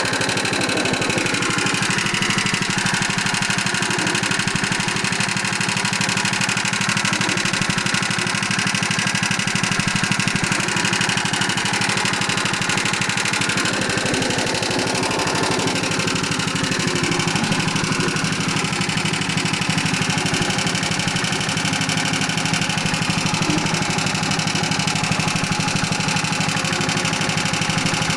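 Coconut milk press machine running steadily, its motor giving a fast, even knock.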